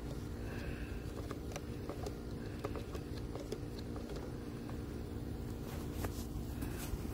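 A steady low machine hum, with a few faint clicks and taps from handling a plastic hand-pump garden sprayer.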